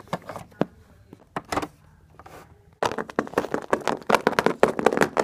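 Plastic Littlest Pet Shop figurines being handled and tapped on a hard surface. A few scattered clicks come first, then a quick run of tapping and knocking about halfway through as the figures are walked across it.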